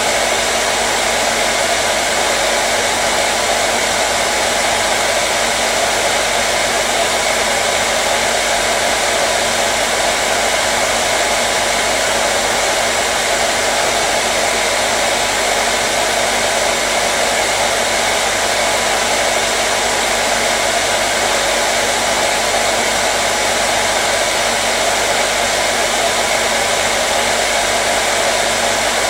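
Hair dryer running steadily: an even, unbroken blowing whoosh with a faint steady hum beneath it.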